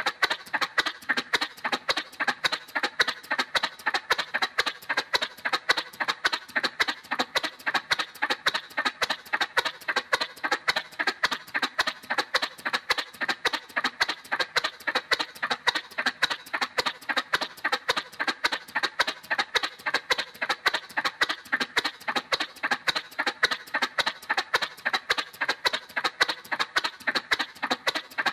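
Cartoon motorcycle sound effect: a fast, even putt-putt of short popping pulses that keeps going without change.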